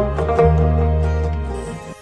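Background music with plucked strings over a steady bass, fading down near the end before picking up again.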